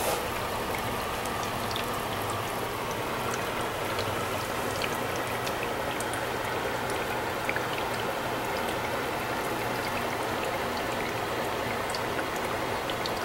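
Water fizzing in a home-made HHO electrolysis cell: a steady hiss of gas bubbles with many tiny scattered pops.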